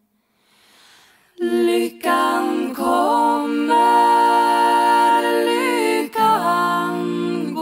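Women's voices singing a cappella in close harmony, a traditional Scandinavian hymn melody. After about a second and a half of near silence the voices come in together over a low held drone note, with the top voice sliding up and down between long sustained notes.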